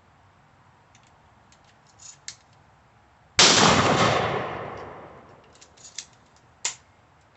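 A single 12-gauge shotgun shot about three and a half seconds in, loud and echoing away over about a second and a half. Light clicks of gun handling come before and after it.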